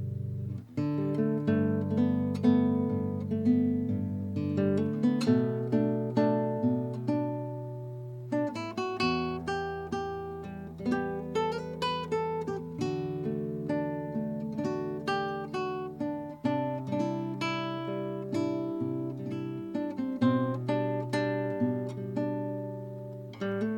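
Kodaira AST 100S nylon-string classical guitar played fingerstyle: a run of plucked melody and arpeggio notes over ringing bass notes, changing chord several times.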